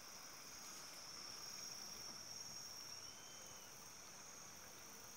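Faint, steady high-pitched drone of insects in the riverside vegetation, with a brief faint whistle about three seconds in.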